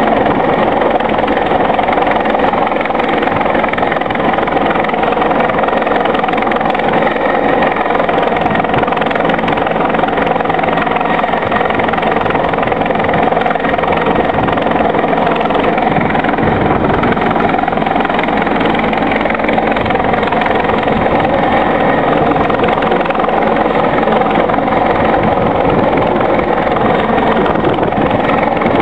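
Bell 412 helicopter's twin turbines and four-blade main rotor running steadily overhead: a loud, continuous rotor and turbine noise with no breaks.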